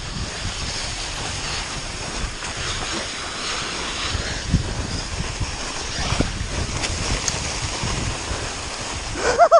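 Rushing wind on a helmet-camera microphone and tyres hissing through snow as a mountain bike descends a snowfield at speed, with scattered low knocks from the bike over bumps. A short vocal sound near the end.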